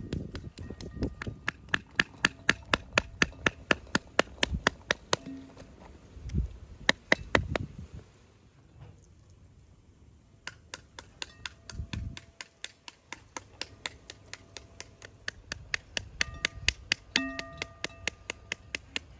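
A wooden stick rapping the rind of a halved pomegranate to knock its seeds out into an enamel bowl. The taps are sharp and come at about three to four a second, with a pause of about two seconds partway through before the rapping resumes.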